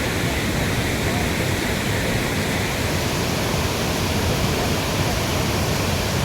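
Steady rush of floodwater flowing hard, an even roar with no breaks.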